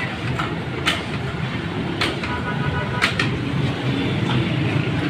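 A wire mesh frying basket knocking and scraping against a plastic tub as raw potato sticks are scooped up, with a few sharp clicks about a second apart. A steady low rumble runs underneath.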